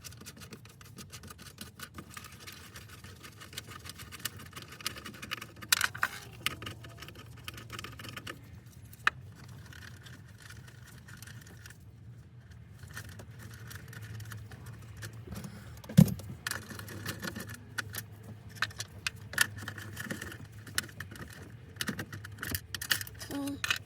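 Metal tools and parts clicking and clinking irregularly as the old shifter plate is worked loose and removed, with one sharp knock about two-thirds of the way through.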